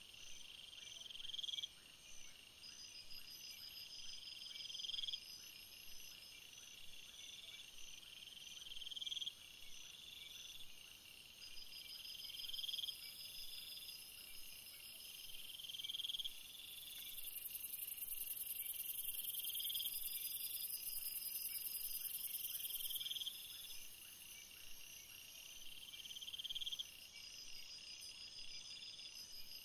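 A chorus of insects chirping: a high chirp that swells and breaks off every three to four seconds over steady pulsing trills, with a higher buzz joining for about six seconds in the middle.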